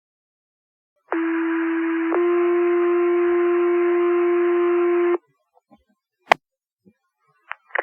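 Two-tone sequential paging tones over a fire dispatch radio channel, the alert that sets off the volunteer firefighters' pagers. One steady tone sounds for about a second, then switches to a second tone held for about three seconds, with radio hiss, before it cuts off sharply. A single sharp radio click follows about a second later.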